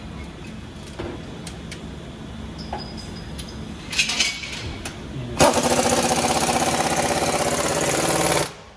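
A few light tool clicks and knocks, then a pneumatic air tool, such as an impact wrench, runs in one burst of about three seconds with a fast even rattle, starting abruptly and cutting off sharply.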